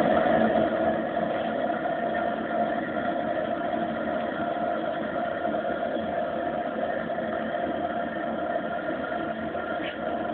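A motor-driven machine running steadily with a constant hum, building pressure while its gauge climbs toward 50.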